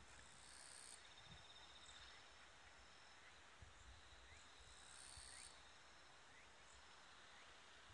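Near silence: faint insects chirring in the background, with a few brief high chirps.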